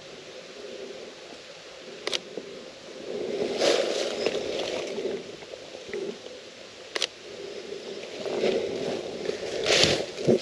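Close rustling and handling noise, swelling twice, with two sharp clicks about five seconds apart.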